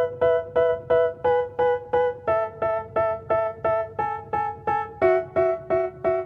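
Background music: a keyboard playing the same chord over and over, about three strokes a second, with the chord changing every second or two.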